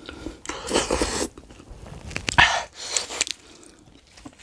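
A person eating spicy chicken noodles (mie ayam) by hand: a few short bursts of slurping and wet chewing with small mouth clicks between them.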